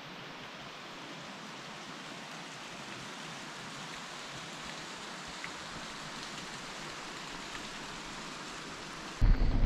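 Steady rushing of flowing stream water, an even hiss. Just before the end a much louder low rumble cuts in suddenly.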